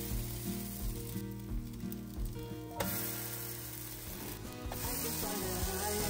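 Apple-oat pancakes sizzling in hot oil in a frying pan. The hiss eases off for a second or two and swells again about three seconds in.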